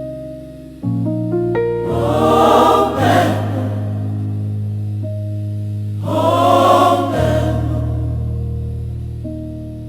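Gospel choir singing slow, sustained chords over held low accompaniment notes, with two swells of voices.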